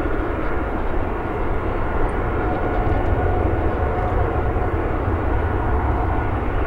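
Airbus A340-300 jet airliner rolling out on the runway just after touchdown: its four CFM56 engines give a steady rumbling jet roar. A faint steady whine comes in about a third of the way through.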